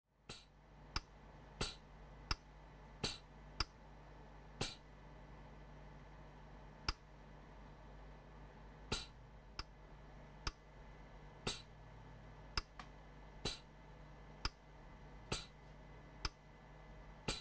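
Pneumatic dispenser clicking as a syringe of solder paste is pulsed onto circuit-board pads: sharp short clicks at irregular intervals of about a second, over a faint steady hum.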